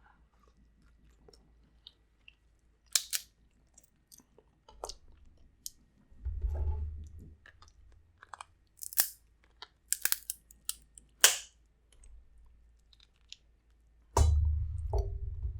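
Close-miked eating of snow crab: sharp cracks and snaps of crab shell between stretches of chewing. Twice, at about six seconds and near the end, comes a low dull bump or rumble.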